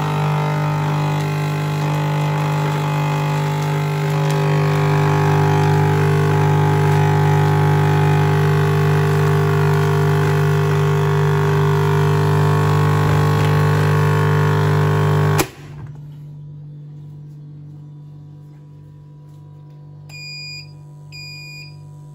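Vacuum sealer's pump motor running with a loud, steady hum as it draws the air out of a food bag, then cutting off abruptly about fifteen seconds in. A fainter hum continues, and a few short electronic beeps sound near the end.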